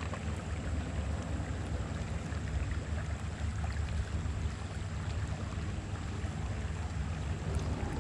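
Steady low rumble of wind buffeting the microphone, over a faint even hiss of river water.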